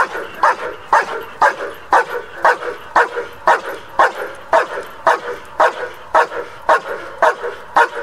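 A young German Shepherd-type dog barking steadily and rhythmically, about two barks a second, at a helper in a hiding blind. This is the bark-and-hold of protection training.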